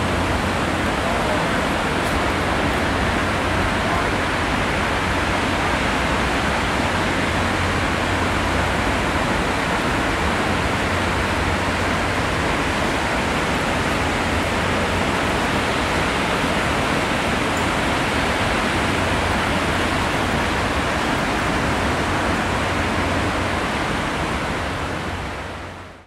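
Ocean surf washing steadily onto the beach in an even rushing noise, fading out near the end.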